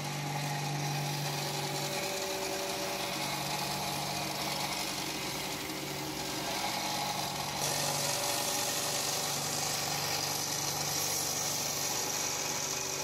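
A 4x36-inch belt sander with a Trizact A100 belt runs steadily while the long steel blade of a tuna knife is ground along it to clean up the scratches left by the coarser belt. A motor hum sits under a grinding hiss, and the hiss grows brighter about eight seconds in.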